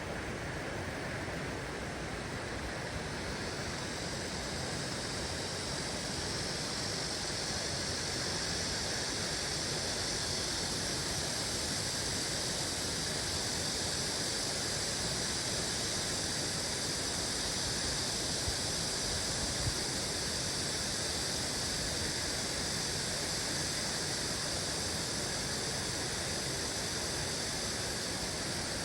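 Stream water flowing: a steady rushing hiss that grows slightly brighter a few seconds in.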